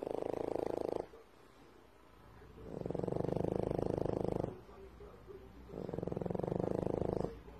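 A pet snoring in slow, even breaths: three fluttering snores, each about one and a half to two seconds long, with quieter pauses between.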